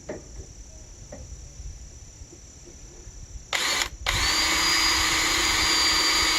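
Electric drill boring holes in wood: a short pull of the trigger, then the drill runs steadily with an even whine for about three seconds. Before it starts there are only faint handling clicks.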